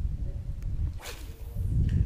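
A fishing rod swishing through a cast about a second in, a whoosh that falls in pitch, over a steady low rumble.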